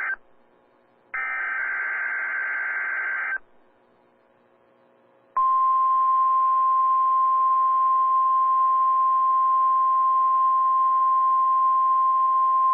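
An Emergency Alert System (SAME) digital header burst, a harsh buzzing warble lasting about two seconds. After a pause of about two seconds, the NOAA Weather Radio 1050 Hz warning alarm tone starts: one steady, high, single-pitched tone.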